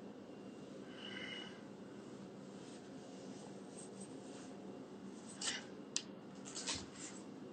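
A low, steady room hum, with a brief faint high tone about a second in. In the last two seconds there are a few sharp rustles and clicks from the phone being rubbed and shifted as its holder moves.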